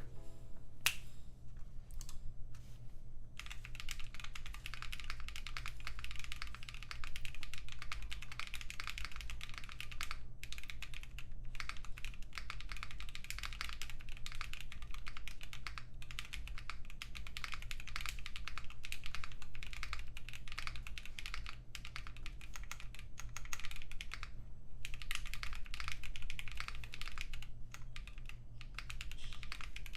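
Typing on a Bakeneko 65 mechanical keyboard in its CNC-machined aluminium case: a few separate keystrokes, then steady fast typing with a short break about three quarters through.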